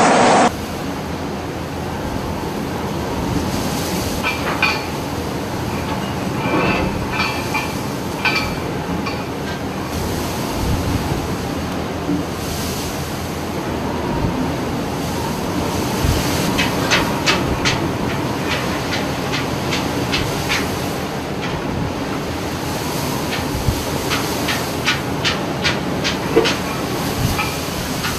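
Steady roar of storm wind and heavy sea heard aboard a ship at sea, with bursts of sharp clicks and rattles from about four seconds in and again through the second half.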